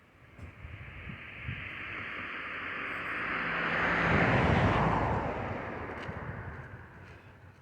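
A vehicle driving past: a rushing noise that grows louder, is loudest about halfway through, then fades away with its pitch dropping.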